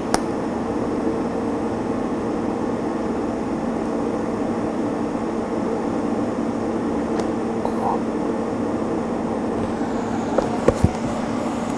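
TIG welding set running while tacking 4130 chrome-moly tubing: a steady hum and hiss of the arc and machine, with a couple of light clicks near the end.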